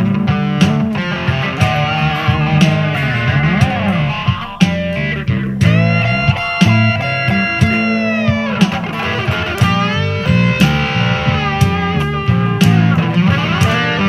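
Blues-rock instrumental break: an electric guitar lead with string bends and a long held note in the middle, over bass guitar and a steady drum beat.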